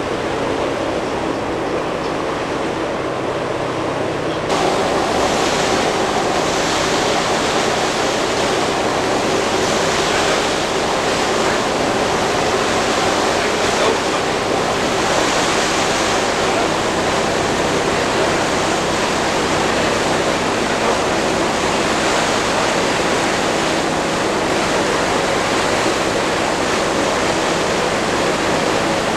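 Steady rush of wind and water on the bay, with a faint low hum underneath. It becomes louder and hissier about four and a half seconds in, and holds there.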